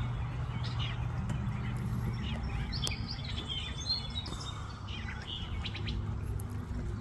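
Bluebirds chirping at a nest box with young ready to fledge: short, scattered high chirps, heard over a steady low rumble.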